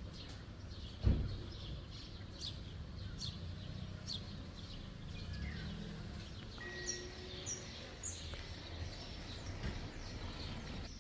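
Small birds chirping, short high notes repeated irregularly over a steady low rumble, with one sharp thump about a second in.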